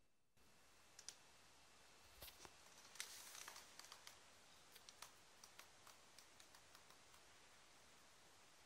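Near silence with faint, irregular small clicks and a brief rustle about three seconds in.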